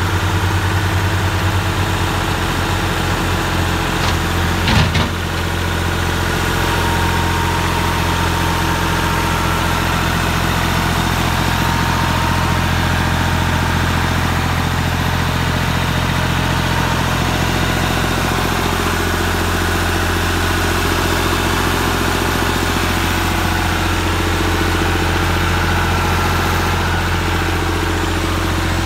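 Three-cylinder Perkins diesel engine of a Massey Ferguson 240 tractor idling steadily, with a short knock about five seconds in.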